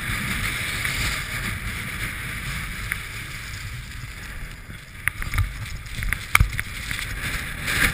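Gusting wind on the microphone over the steady hiss of a snowboard sliding on packed snow while being towed up a T-bar lift. A few sharp knocks come in the second half.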